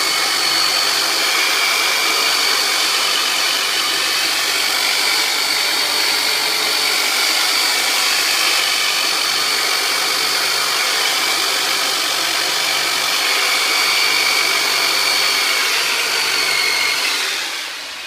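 Turbonator myofascial release instrument running steadily with a high whine, winding down and stopping near the end.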